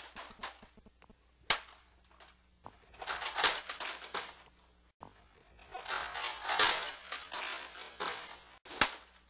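A few single sharp knocks and two longer stretches of rustling, scraping noise, about three seconds in and again about six seconds in.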